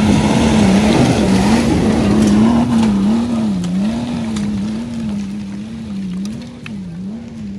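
Nissan Patrol's BMW M57 twin-turbo straight-six diesel working hard up a muddy slope, its revs rising and falling about once a second as the wheels spin and grip in the mud, with a few sharp clicks of flung debris. It grows fainter as the truck pulls away uphill.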